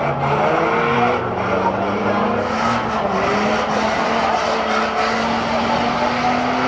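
Banger racing cars' engines running and revving, several pitches rising and falling together, with tyres skidding as one car spins its wheels in a smoky burnout.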